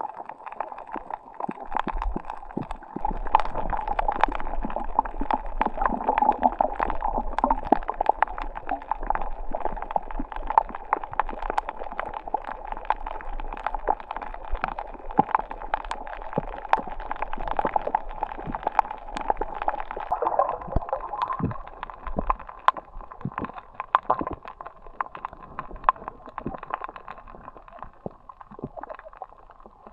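Water gurgling and sloshing, with many small sharp clicks throughout.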